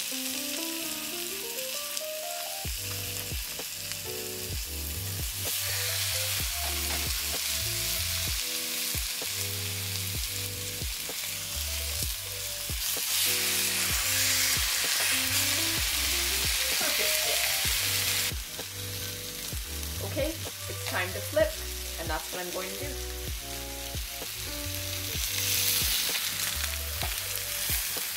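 Thick bone-in pork chops sizzling as they sear in a very hot cast iron skillet, a steady frying hiss that gets louder about five seconds in and again near the end as more chops go in. A sharp click sounds about three quarters of the way through, over light background music.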